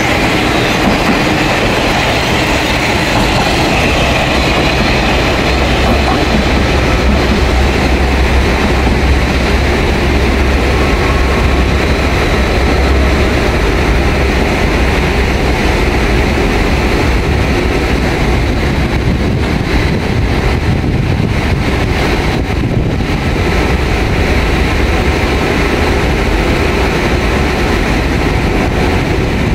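Diesel railcar pulling away from the platform: its low engine rumble and the clatter of wheels on the rails fade into the distance over the first half, leaving a steady rush of background noise.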